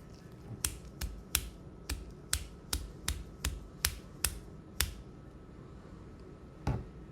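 Sharp clicks of a finger flicking a plastic tuberculin syringe barrel, about eleven in a row at a little over two a second, then one more near the end: tapping the syringe to dislodge air bubbles before setting the dose.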